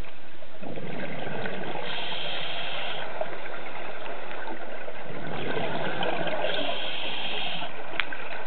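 Scuba diver's exhaled breath bubbling out of the regulator underwater, two breaths of a couple of seconds each, about four and a half seconds apart, over a steady hiss.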